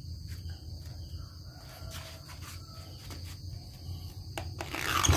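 Kioritz SRE235 23cc two-stroke brush cutter engine idling quietly, a steady low hum with a fine even flutter. A little handling noise rises near the end.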